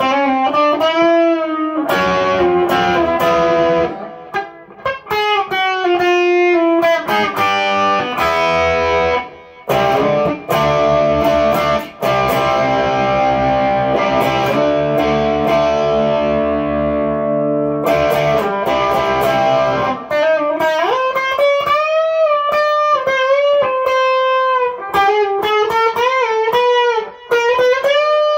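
Electric guitar, a single-coil American Stratocaster played loud through a Fender Twin Reverb amp and effects pedals. It opens with a single-note lead line with bends and vibrato, moves about two seconds in to thick sustained chords, and returns to bent, wavering lead notes near the end.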